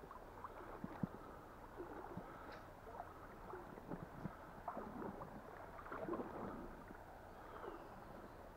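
A river flowing and gurgling over stones, with scattered small splashes and knocks.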